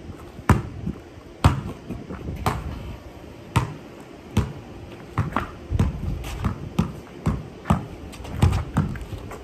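Basketball bouncing on a concrete driveway, about one bounce a second at first, then quicker and less regular dribbling in the second half.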